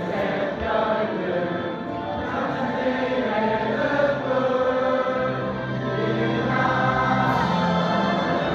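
A large group of voices singing the school song together, choir-like and sustained.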